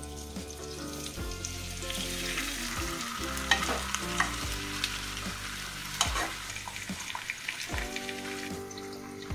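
Potato slices frying in hot oil at the bottom of a pot, a steady sizzle, with a metal spoon clinking and scraping against the pot a few times as rice is spooned in. Soft background music plays underneath.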